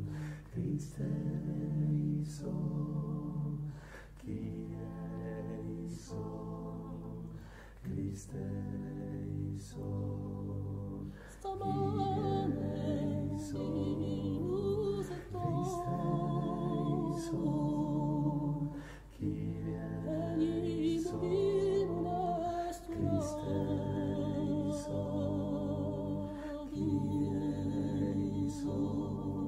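Corsican polyphony sung a cappella by a small group of men's voices in close harmony, in long held phrases with brief breaths between them. About eleven seconds in, a higher voice enters with ornamented, wavering lines over the sustained lower parts.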